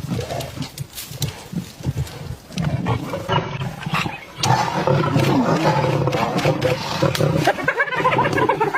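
Big cats roaring during a fight, getting louder and more continuous about halfway through.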